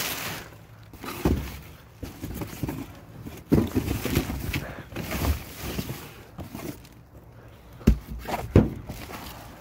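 Rummaging through trash bags and a cardboard box in a dumpster: plastic and cardboard rustling and scraping, broken by several thumps, the sharpest two near the end.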